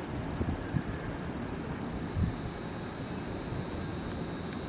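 JR West 223-2000 series electric train running past on the line: a steady low rumble with a few soft thumps. A high-pitched buzzing pulses rapidly at first, then holds steady and grows louder toward the end.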